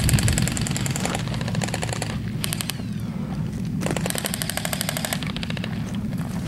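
Airsoft electric rifles firing full-auto, in about four bursts of rapid clicking shots, the longest a little over a second about four seconds in, over a steady low rumble.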